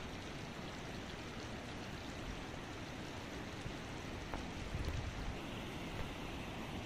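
Swollen, muddy floodwater from an overflowing creek rushing steadily across flooded fields, with a brief low rumble about five seconds in.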